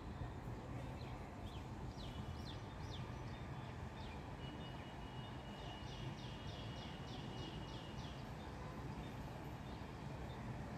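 A bird calling in short falling chirps, a few about two seconds in and then a quick run of them a little past the middle, over a steady low outdoor rumble.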